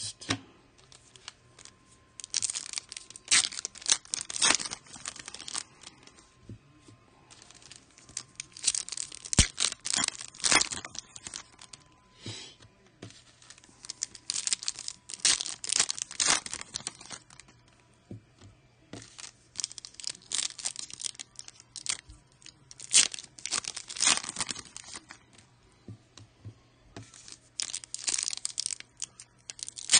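Foil trading-card pack wrappers being torn open and crinkled in repeated bursts, with quieter gaps between.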